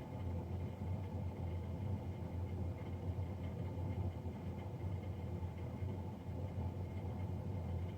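Navien NCB-240 combi boiler's combustion fan running with a steady low drone, a fan noise the owner finds loud.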